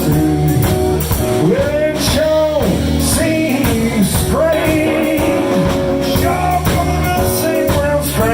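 Live blues band playing: drums and bass keep a steady groove under a lead line whose notes bend up and down between sung phrases.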